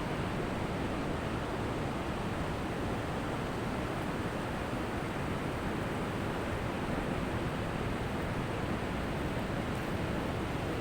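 Ocean surf washing steadily onto a beach: a continuous even rush of breaking waves with no distinct individual wave crashes.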